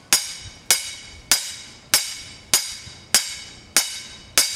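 Steel black pipe repeatedly striking to drive a new rear axle bearing down the axle shaft: eight sharp metallic impacts, evenly about every 0.6 s, each ringing briefly like a bell.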